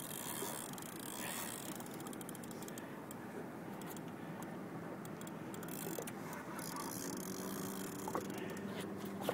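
Fishing reel cranked in runs of quick light clicks while reeling against a hooked tarpon, over a steady hiss.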